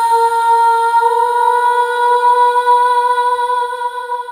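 Background music: one long held note with a rich set of overtones, its pitch edging slightly upward, beginning to fade near the end.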